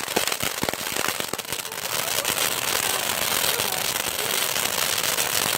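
TNT Fireworks 'Delirium' firework going off: a few separate pops in the first second or so, giving way to a dense, continuous crackle of many small pops.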